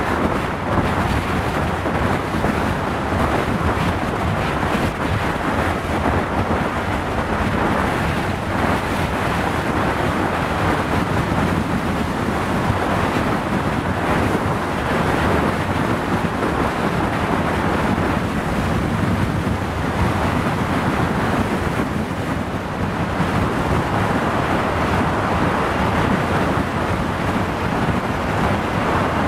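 Steady wind rush over the microphone of a motorcycle riding at speed on a highway, with road and vehicle noise underneath.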